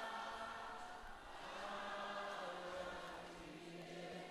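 A congregation singing a slow worship song together, in long held notes.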